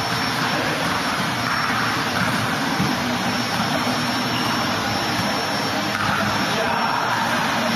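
Steady, loud rushing noise with an even, unchanging level, the kind of roar made by air handling or machinery; no separate ball bounces stand out from it.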